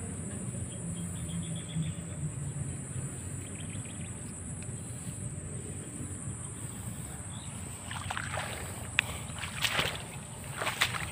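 Open-field ambience with a steady low rumble and a steady high hiss; from about eight seconds in, a run of rustles and crackles as grass and leaves are handled close to the microphone.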